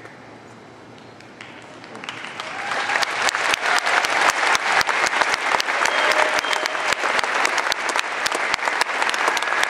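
Audience applauding. The clapping starts about two seconds in and builds to a dense, steady applause.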